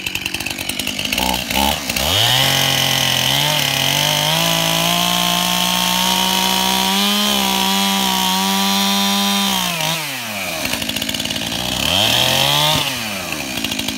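Two-stroke chainsaw revving up and running at high throttle for about eight seconds, then dropping back, revving once more briefly, and cutting off near the end.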